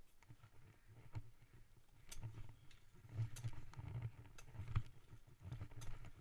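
Irregular footsteps crunching on loose gravel, with dull knocks and bumps, louder in the second half; no engine is running.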